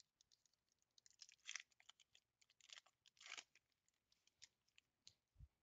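Faint crinkling and tearing of a foil trading-card pack wrapper being ripped open by hand, in a few short crackles with small ticks between them.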